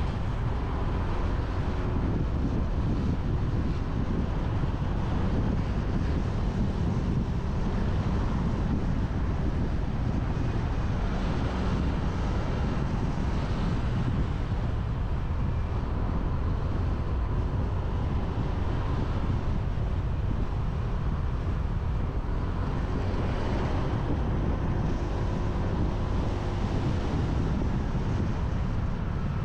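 Steady wind noise rushing over a GoPro's microphone on a moving motorbike, mixed with the rumble of the bike's engine and tyres on the road.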